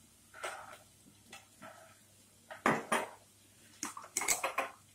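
A steel spoon clinking against a glass bowl while soy sauce is measured and tipped into cornflour: a few short, sharp clinks in the second half.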